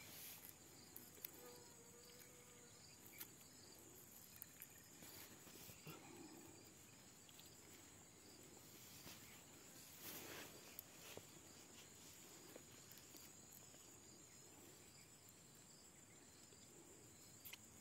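Near silence: a faint, steady, high insect trill, with a few soft rustles scattered through.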